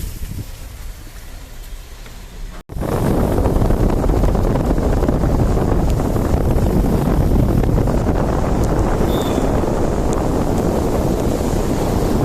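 Steady rumble and rush of a moving car, with wind buffeting the microphone. It is quieter at first, then cuts out abruptly about three seconds in and comes back louder and steady.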